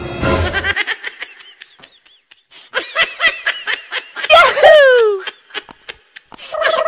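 Comic laughter sound effect: a quick run of short high-pitched laughs, then a louder laugh sliding down in pitch. A short noisy burst comes just before it, and music starts near the end.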